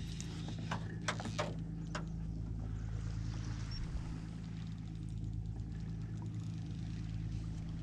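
Steady low hum of a running motor, with a few sharp clicks in the first second and a half.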